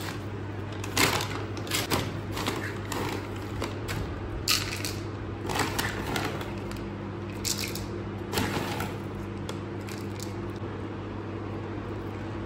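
Crinkling of a resealable plastic dog food pouch and dry kibble clattering into a small plastic bowl, in short irregular bursts over a steady low hum.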